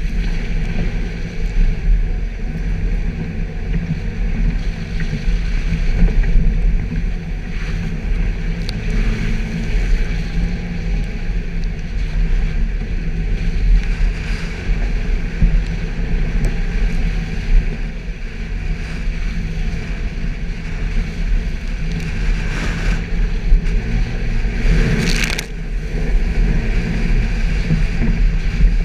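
Suzuki Jimny engine running steadily under load as the 4x4 drives off-road, with a low drone. A couple of brief louder rushes of noise come near the end.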